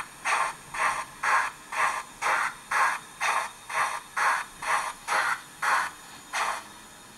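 Model class 39 steam locomotive's electronic steam chuff, about two even chuffs a second, the chuffs spacing out near the end.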